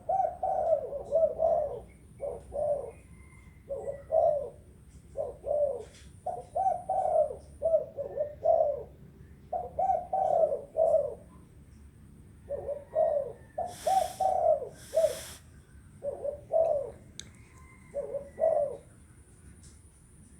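Spotted dove cooing over and over in short phrases of a few notes, with pauses between them: a 'thổ đồng' voiced bird calling to lure wild doves. Two brief hissy bursts come about two-thirds of the way through.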